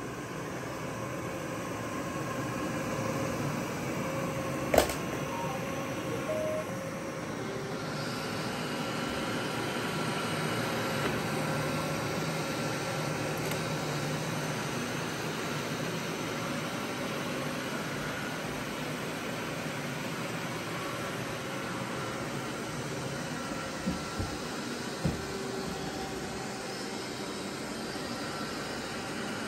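Robot vacuum cleaners running together: a steady whir of suction and brush motors with a few held tones. A sharp knock about five seconds in and a few lighter knocks near the end.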